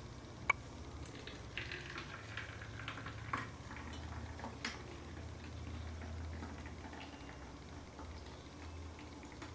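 Thin rice-flour batter pouring from an enamel pot into a plastic bottle: a faint trickle into the bottle, with a few light clicks.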